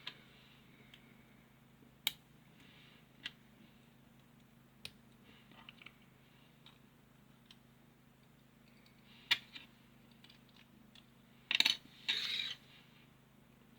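Small plastic toy pieces clicking and tapping as a figure is handled and fitted together: a few single sharp clicks, then a louder quick rattle of clicks near the end.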